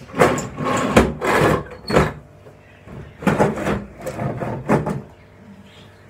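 Hands pressing and spreading a disc of dough on a floured stone countertop: a series of about six rough rubbing, sliding strokes, with a couple of sharp knocks about one and two seconds in and a pause in the middle.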